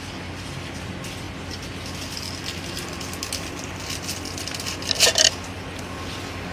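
Diamond DFC-20A electric-hydraulic rebar cutter running with a steady hum while its blade closes on a steel bar, with ticks and creaks building up, then a sharp metallic snap and clatter about five seconds in as the bar shears through.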